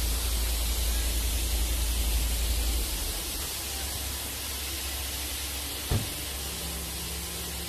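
Steady hiss of a greenhouse fogging system, its four-way Netafim fogger nozzles spraying mist under pump pressure, over a low rumble that drops in level about three seconds in. A single sharp knock about six seconds in.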